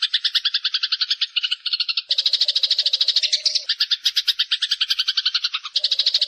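Eurasian tree sparrow chirping in a fast, unbroken chatter of about a dozen chirps a second. The pattern shifts abruptly about two seconds in and again near the end, with a faint steady low hum joining at those points.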